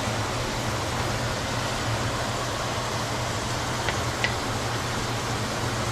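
Steady hiss over a low hum from the stove and kitchen while the shrimp cooks, with two light clicks about four seconds in.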